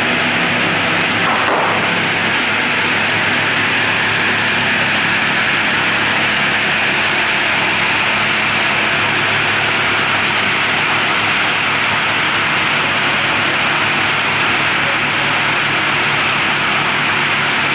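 Multi-blade circular saw machine running steadily, its motor and spinning blades giving a loud, even hum and whine. There is a short knock about one and a half seconds in.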